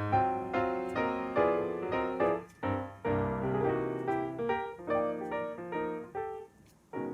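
Background piano music: a light keyboard melody of plucked-sounding notes over chords, with a brief pause near the end.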